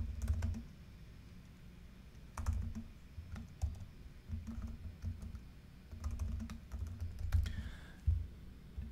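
Typing on a computer keyboard: short runs of key clicks with brief pauses between them, as a sentence is typed.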